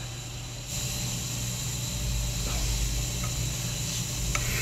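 Steam hissing steadily as the handwheel steam valve of an 1866 stationary steam engine is opened to start it, with a low rumble building about two seconds in and a single click near the end.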